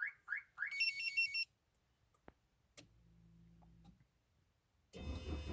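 Tomahawk 9010 car alarm giving three quick electronic chirps and a short warbling beep as a remote start is triggered, then a faint hum. About five seconds in, the Audi 80's starter motor begins cranking the engine.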